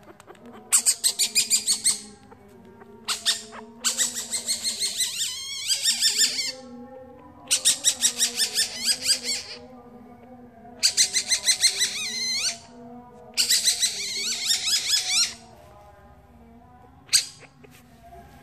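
Masked palm civet cub calling: rapid trains of high-pitched squeaky chirps in about six bouts of one to three seconds each, with short pauses between, and a single short squeak near the end.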